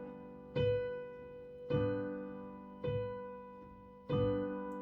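Piano accompaniment to a slow song: a chord struck four times, about once a second, each left to ring and fade.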